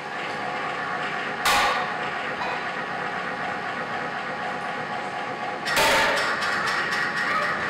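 Experimental sound performance with rocks and machines: a steady drone of many held electronic tones, broken by two sudden loud noisy bursts, about a second and a half in and again near six seconds. The second burst is longer and trails off into a scatter of clicks.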